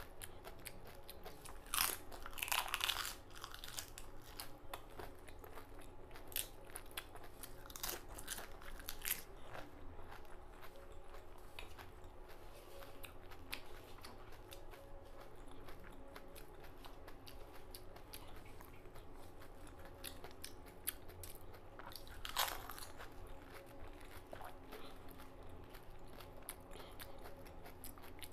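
Crisp pani puri shells being bitten and chewed, crunching loudly about two seconds in, again around eight to nine seconds and near twenty-two seconds, with softer chewing and mouth clicks between.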